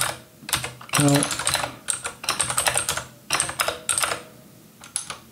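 Typing on a computer keyboard: several quick bursts of key clicks separated by short pauses.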